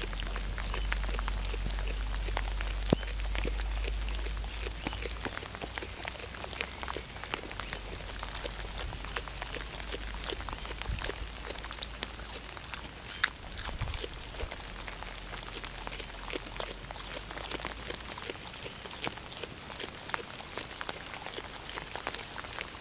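Koala chewing eucalyptus leaves at close range: a dense, irregular run of crisp crunching clicks as the leaves are bitten and munched.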